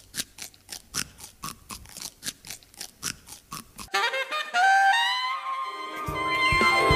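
A celery stalk bitten and crunched close to a microphone as percussion, a fast rhythm of crisp crunches. About four seconds in, a saxophone takes over with a run of notes, and lower notes come in near the end.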